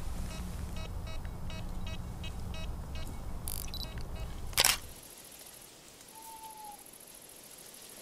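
A camera shutter clicks once, loud and sharp, about four and a half seconds in, after a run of small evenly spaced ticks.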